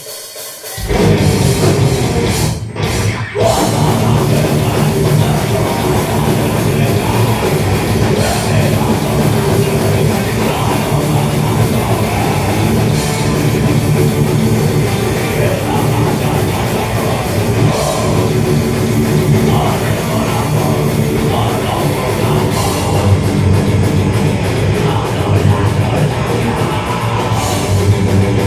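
Thrash metal band playing live with distorted guitars, bass and drum kit, crashing in about a second in, stopping briefly twice around three seconds in, then playing on at full volume.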